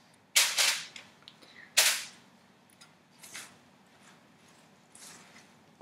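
Aluminium foil crinkling as a large whole fish lying on it is handled: two loud crackling bursts about a second and a half apart, the first lasting about half a second, then fainter rustles.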